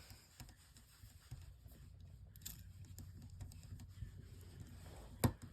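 Faint, scattered small clicks and taps of a small screwdriver and phone parts being handled during smartphone reassembly, with one sharper tick near the end.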